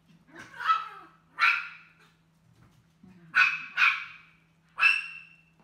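A dog barking five times: two barks in the first second and a half, a pause, then three more.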